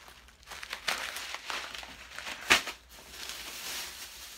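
Plastic bags crinkling and rustling as they are handled, with one sharp, louder crackle about two and a half seconds in.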